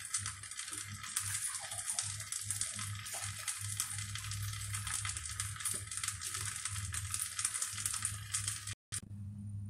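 Risotto rice sizzling in a hot pot as it is stirred with a wooden spatula: a steady hiss with light scraping clicks, cut off suddenly near the end.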